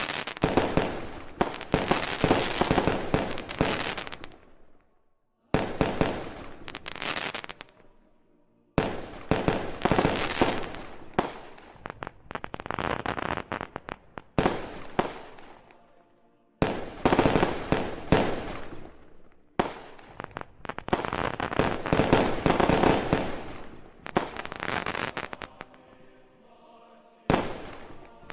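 Aerial firework shells bursting in a display, one volley after another: each begins with a sharp bang and runs on in a few seconds of dense crackling that dies away, with short lulls between volleys.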